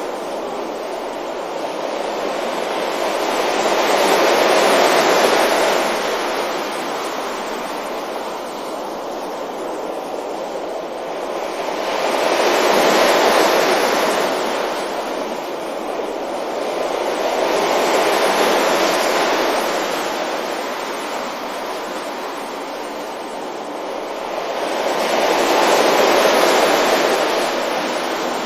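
Sea waves breaking on a beach: a steady wash of surf that swells and fades four times, one surge every six to eight seconds.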